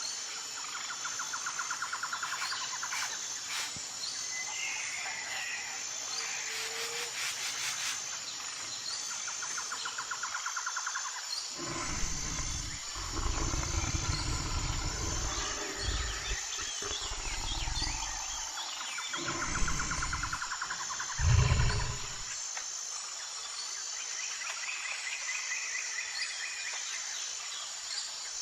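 Natural soundtrack of insects buzzing and trilling steadily, with birds chirping, and a series of low animal growls from about twelve seconds in, the loudest near the end of the series.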